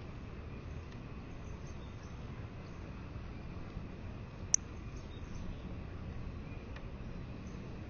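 Northern cardinal giving a single sharp, high chip note about four and a half seconds in, with a fainter chip near seven seconds, over a steady background of rain.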